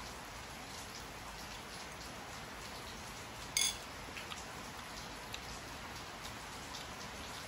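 Steady background hiss with faint scattered ticks. About halfway through comes one short, bright clink of a metal spoon against a ceramic bowl.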